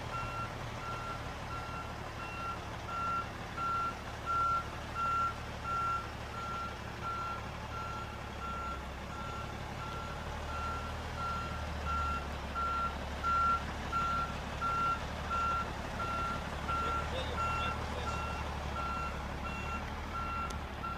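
Truck's reversing alarm beeping steadily, about two beeps a second, over the low rumble of the truck's engine running.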